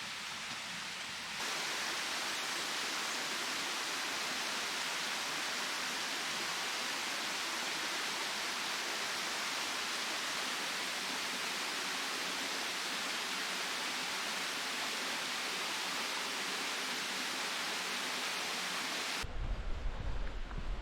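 Rushing water of a mountain valley stream, a steady, even hiss that steps louder at a cut about a second and a half in. Near the end it cuts abruptly to wind buffeting the microphone.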